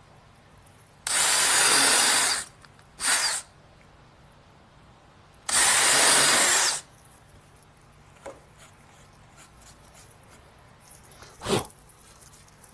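Power drill boring into wood with a countersink bit, run in three bursts: a longer run, a brief blip, then another longer run. A short knock near the end.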